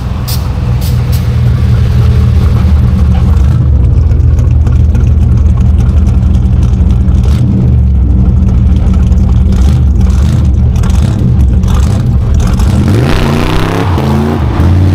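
Classic American car's V8 engine running close by with a deep, steady low rumble. About thirteen seconds in, it revs up and its pitch rises.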